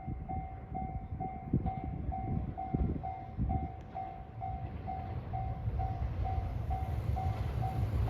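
Level crossing warning bell ringing, about two dings a second, while a train runs over the crossing. Irregular clacks of the wheels over rail joints come in the first half, and the train's low rumble grows louder toward the end.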